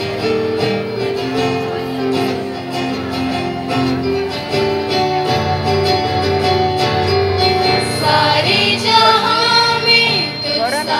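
A live women's choir singing a Hindi devotional song to electronic keyboard and guitar through a PA. Long held notes give way about eight seconds in to livelier, wavering voices, with one rising slide near the end.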